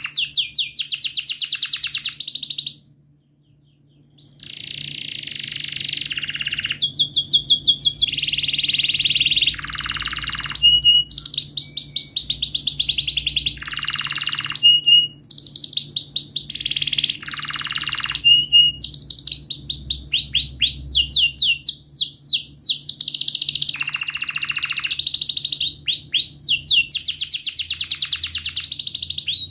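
Domestic canary singing a long song of fast trills and rolling runs of repeated notes, with a short pause about three seconds in, over a faint steady low hum.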